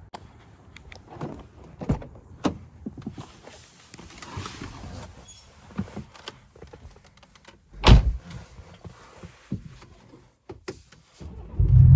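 Scattered clicks, knocks and rustling from handling things, with one heavy thump about eight seconds in.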